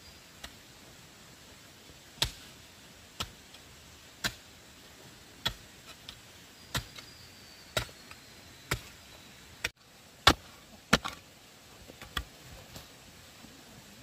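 Sharp single blows of a hand tool on bamboo, about one a second, some ten strikes in all, the hardest two a little past the middle.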